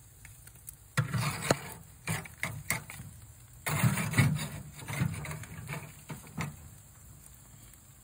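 Metal grilling utensils knocking and scraping on the grill grate as smoked pig tails are turned and shifted, a run of irregular clacks and scrapes from about a second in until past six seconds, loudest near the start and again around four seconds.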